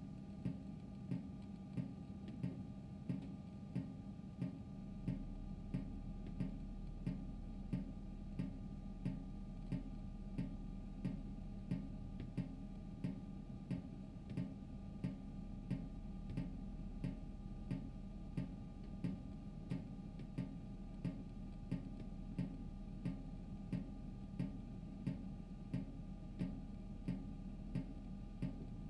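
Steady, even ticking, about two ticks a second, over a faint steady hum.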